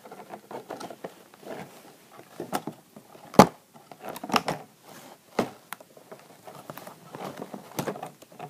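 Handling noise from a boxed doll being gripped and shifted: rustling and crinkling of the clear plastic window and cardboard, with irregular knocks, the loudest one about three and a half seconds in.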